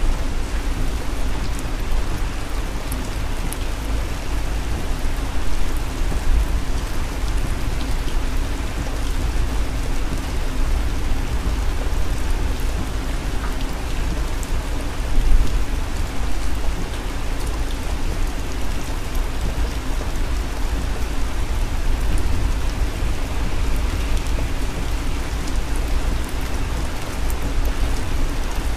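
Rain pattering on a moving vehicle's windshield and roof, heard from inside the cabin over a steady low road rumble, briefly louder about halfway through.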